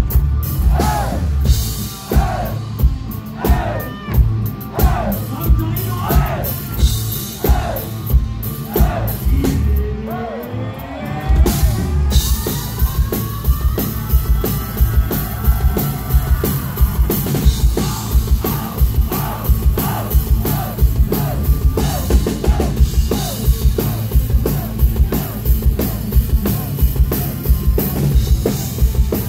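Live rock band playing loudly: a drum kit keeps a steady beat under electric guitars. About twelve seconds in, the sound fills out as the whole band comes in.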